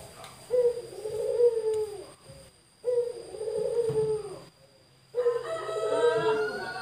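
Male puter pelung dove (Barbary dove) cooing: three drawn-out coos about two and a half seconds apart, each sliding down in pitch at its end.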